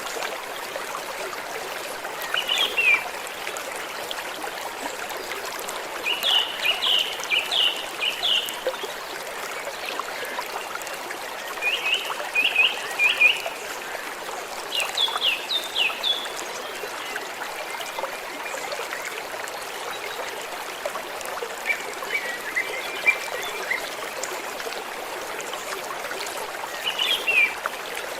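Water in a small stream flowing gently and steadily. Birds call over it several times, each call a short run of quick falling chirps.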